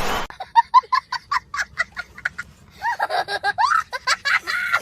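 A loud noise cuts off just after the start, then high-pitched laughter in quick repeated bursts, about six a second, followed by a few sliding, drawn-out voice sounds.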